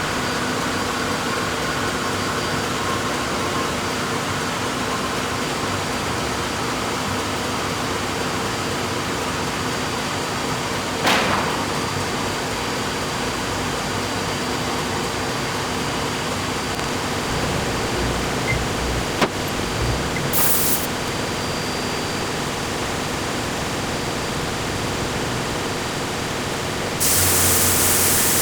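Sawmill machinery running steadily with a constant hum under a rushing noise. Near the end a louder rushing noise comes in.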